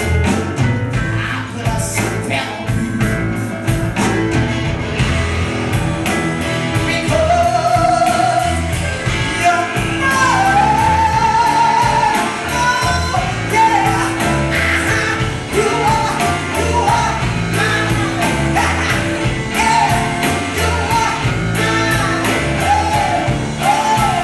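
Live blues band playing a song with drum kit, electric guitars and keyboard. A woman's lead vocal comes in about seven seconds in, singing long, wavering held notes over the band.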